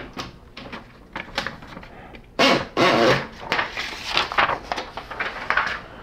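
Hands working the paper-bail rollers and platen of a 1955 Halda Star desktop typewriter: scattered metal clicks and knocks, with a louder rubbing scrape about two and a half seconds in.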